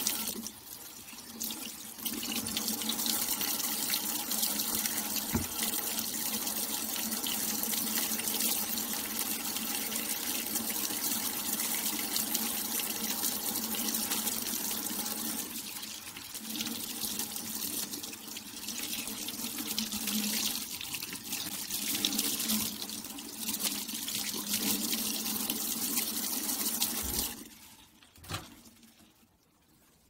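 Kitchen faucet running into a stainless steel sink, the stream splashing over hands and a soapy cloth glove being washed under it. The water sound stops shortly before the end, followed by a single click.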